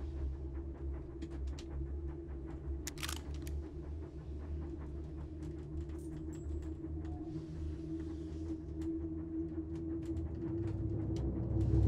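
Steady low rumble of a moving railway passenger carriage, with scattered small clicks and creaks and a faint held tone, growing louder near the end.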